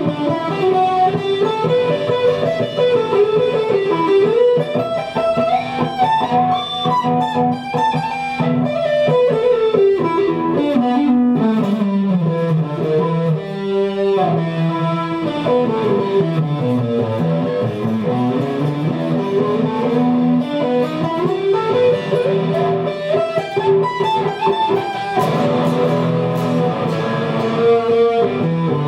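Guitar music: a melodic line of notes that climbs and falls in long runs over sustained low notes.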